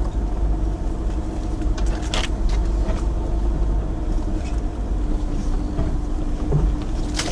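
Chevrolet Niva driving slowly over a rough forest track, heard from inside the cabin: a steady engine drone over a low road rumble, with a few short knocks about two seconds in and again near the end.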